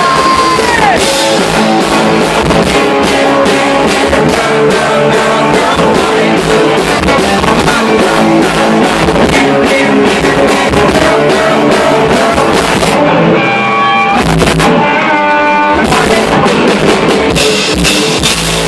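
Live rock band playing loudly: electric guitar, drum kit and keyboard, with some singing.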